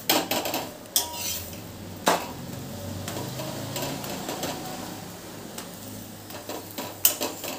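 Steel slotted spatula clinking and scraping on an iron tawa as a paratha is flipped and pressed, with sharp clicks about a second apart early on and a cluster of them near the end. A faint sizzle of oil under the paratha runs beneath.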